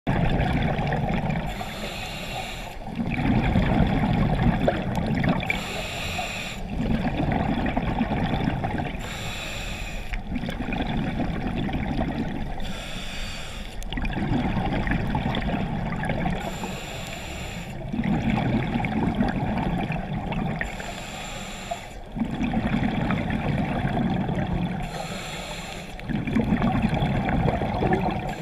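Scuba diver breathing through a regulator underwater, heard through the camera housing: a short hissing inhale alternating with a longer low bubbling exhale, about one breath every four seconds.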